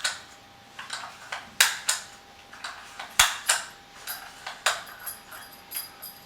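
Suomi 72-round drum magazine's spring-loaded nut clicking past its catches as the feed spring is unwound by hand: a run of irregular metallic clicks, the sharpest about three seconds in.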